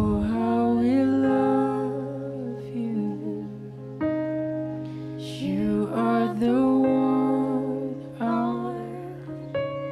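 Slow worship song: a man singing a gentle, sustained melody into a microphone over held instrumental chords, in phrases with short breaks between them.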